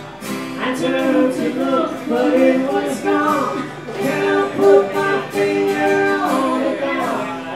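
Live acoustic duo: a man and a woman singing together over two strummed acoustic guitars.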